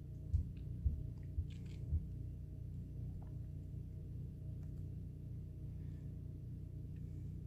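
Steady low rumble with a faint hum, and four soft low thumps spaced about half a second apart in the first two seconds.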